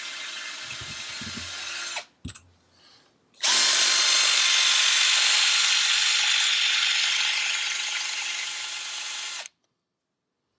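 Power drill drilling out a broken bolt in an engine block's bell-housing flange. It runs for about two seconds, stops briefly, then runs steadily again for about six seconds before cutting off suddenly.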